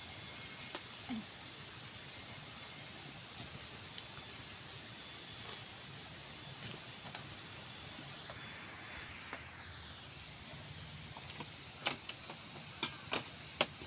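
Steady patter of rain falling around an open bamboo hut, with light clicks and rustles of handling. A few sharp knocks near the end as someone steps and moves about on the split-bamboo floor.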